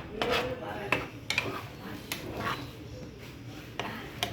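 A spoon scraping and knocking against a cooking pan in irregular strokes as a curry is stirred.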